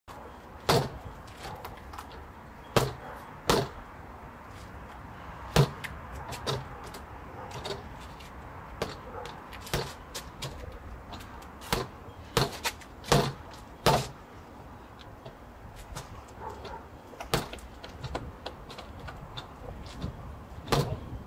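Boxing gloves striking a freestanding reflex punching bag: about a dozen sharp smacks at irregular intervals, some coming in quick pairs.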